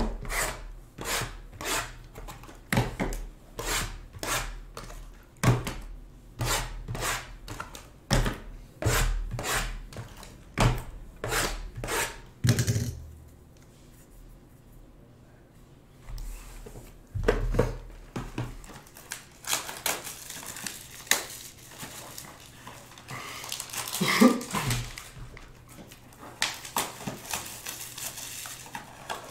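Sealed trading-card hobby boxes being handled and set down on a table: a quick run of knocks and taps for about twelve seconds, a short lull, then softer rustling with a few more knocks.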